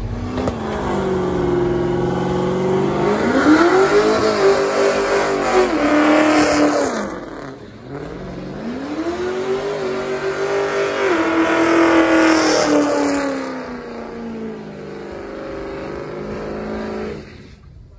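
Ford Mustang engine revving hard while its rear tyres spin in a burnout on wet asphalt. It climbs and holds high, drops briefly about seven seconds in, revs up again and slowly falls away before cutting off near the end.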